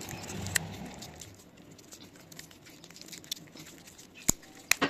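Hands handling and fitting a small plastic GoPro mount piece: soft rustling at first, then faint scattered ticks and two sharp clicks a little after four seconds in.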